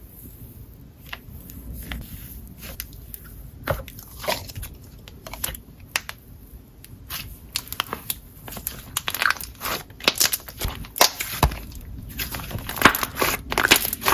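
Cheese slime being squished and stretched by hand, giving a run of sharp crackles and pops that come thicker and louder in the second half.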